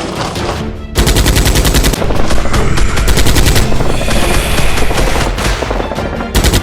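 Rapid automatic gunfire sound effects, starting about a second in and firing in long bursts, over background music.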